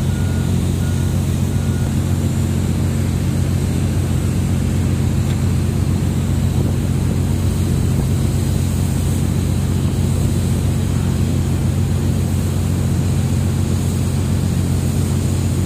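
Steady, loud low drone of heavy machinery running, unchanging throughout.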